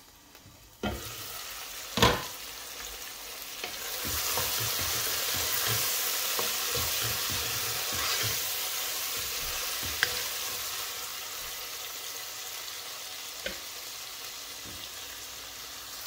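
Dried baim fish and masala frying in a granite-coated pan, stirred with a wooden spoon. A sharp clatter comes about two seconds in, then steady sizzling begins about four seconds in, with the spoon scraping and knocking against the pan.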